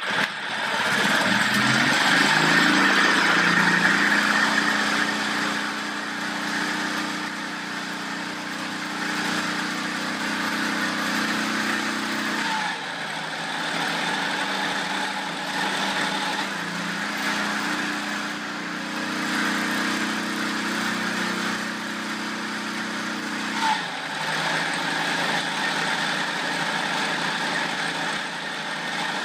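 Hand-cranked gasoline engine, the one used to get the old 1920s Caterpillar diesel compressor going, catching just after the start and speeding up over a couple of seconds. It then settles into a steady run, its pitch shifting twice along the way.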